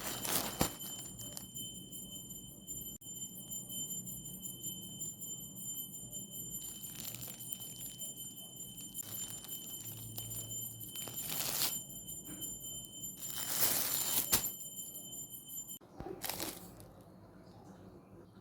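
Packaging rustling and crinkling in several short bursts, over a set of steady high chiming tones that stop abruptly near the end.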